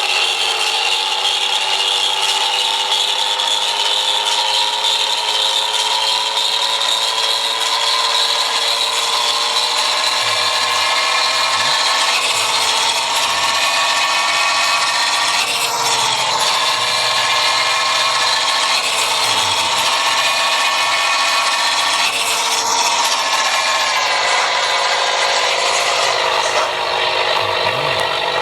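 Hino bus engine running under way with the rasping growl known as "ngorok" (snoring). Its pitch rises slowly over the first ten seconds, then holds fairly steady with small dips.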